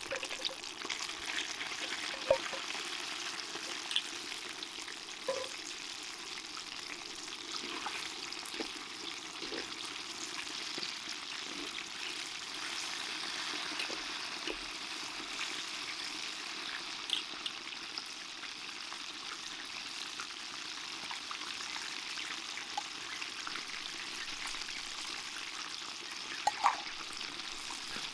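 Karaage (Japanese fried chicken) deep-frying in hot oil: a steady sizzle with scattered sharp pops.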